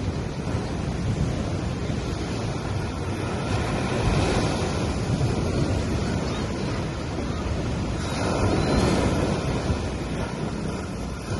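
Small waves breaking and washing up a sand beach. The surf swells twice, about four seconds in and again around eight to nine seconds in.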